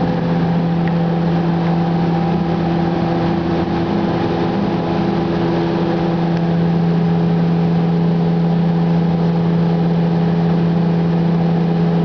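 A machine running steadily with a constant low hum that holds one pitch throughout.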